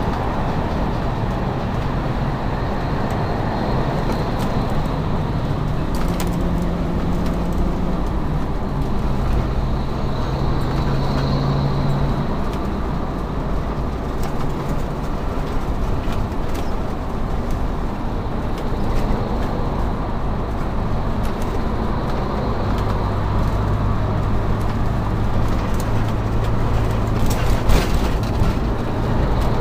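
Steady road and engine noise inside a motorhome driving on a freeway, the engine's low hum shifting in pitch now and then. A few sharp rattles near the end.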